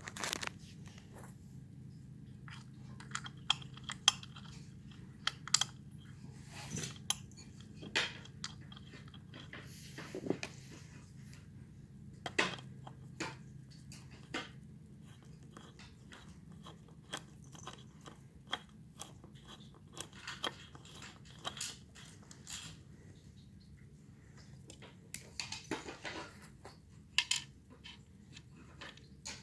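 Irregular clicks, crackles and light clatter of parts and packaging being handled during a ceiling fan installation, over a steady low hum.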